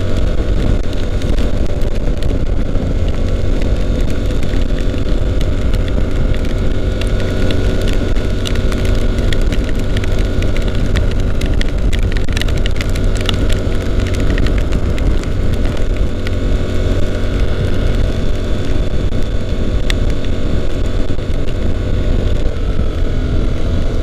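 Honda NC750X motorcycle's 745 cc parallel-twin engine running at a steady cruising speed under heavy wind rush on the rider's microphone, with scattered sharp ticks of raindrops hitting it.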